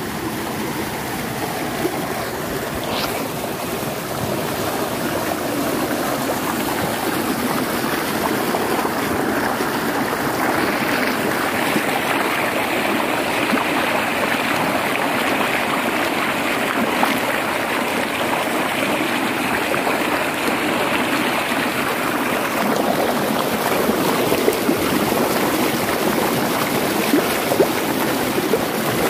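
Mountain stream rushing over boulders and small cascades, heard close to the water's surface as a steady rush. It gets a little louder and brighter from about ten seconds in.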